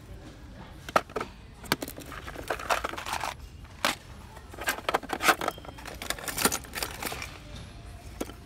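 Fishing tackle handled in a tackle box: small tins, line spools and a plastic compartment case clatter and knock against each other, a dozen or so sharp clicks with rustling in between.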